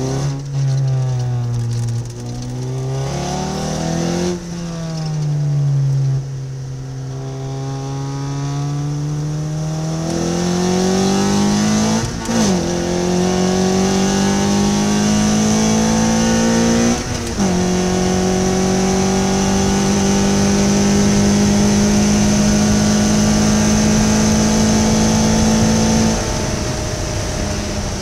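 Ariel Atom engine under hard acceleration from the open cockpit, climbing out of a corner and up a straight. The note rises steadily, drops sharply at two quick upshifts, holds at high revs, then falls away as the driver lifts off near the end.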